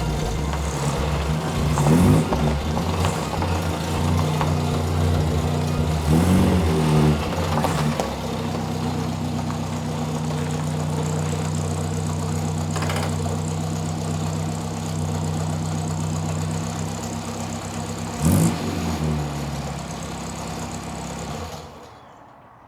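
Austin Minor pickup's engine running steadily, its revs rising and falling briefly three times, before the sound fades away near the end.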